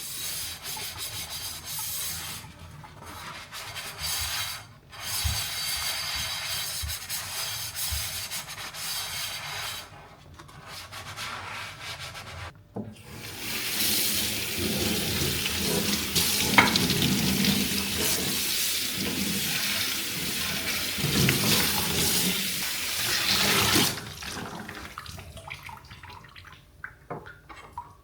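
Rubbing and scrubbing on a hard kitchen surface, in short strokes with brief pauses. About halfway through, a tap runs steadily for roughly ten seconds and then cuts off.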